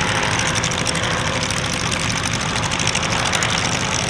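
A Calidus autogyro's turbocharged four-cylinder Rotax 914 engine running steadily as it flies its display, an even drone that does not change in level.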